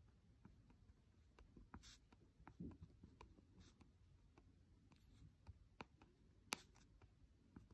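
Faint, irregular taps and light scratches of a white wax crayon tip dabbing small dots onto watercolor paper, with one sharper tap about six and a half seconds in.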